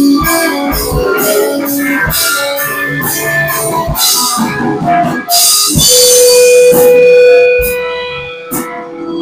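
A live band playing: guitar and keyboard over drums, with cymbal hits about twice a second in the first half. About six seconds in, a single note is held steadily for a second or two.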